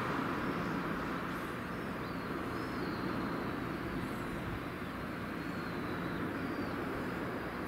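Steady outdoor background noise with a few faint, high bird chirps now and then.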